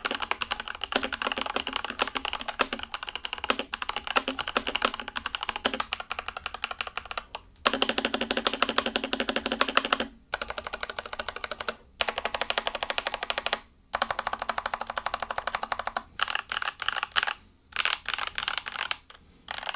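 Typing on an iQunix OG80 Dark Side mechanical keyboard, a 75% board with a polycarbonate case, factory-lubricated TTC switches and PBT double-shot keycaps. The keystrokes come in quick runs of clicks, broken by brief pauses several times.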